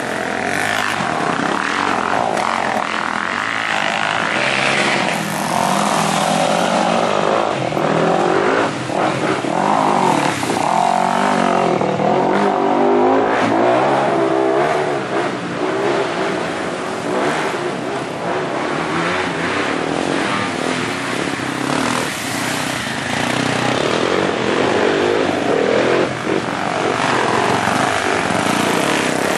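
Enduro dirt bike engines running and revving as the bikes ride through a shallow stream, the pitch rising and falling with the throttle, with water splashing.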